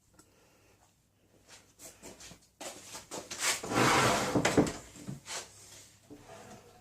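A DeWalt sliding compound miter saw's head and slide mechanism being worked by hand. A few light clicks come first, then about two seconds of sliding, rattling metal and plastic, drawer-like, and a few smaller knocks.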